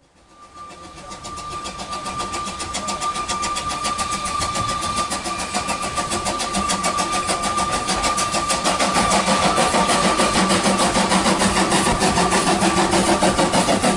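Narrow-gauge saddle-tank steam locomotive working a train, its exhaust beats coming in a quick, even rhythm and growing louder over the first several seconds as it approaches. A steady high tone runs beneath the beats.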